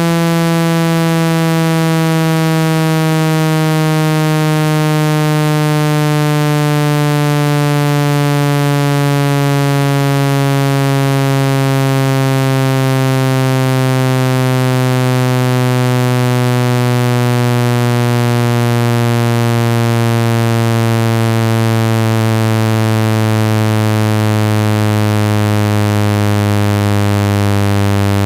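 Synthesized low, buzzing water-eject tone, made to shake water droplets out of a phone's speaker, its pitch gliding slowly and steadily downward.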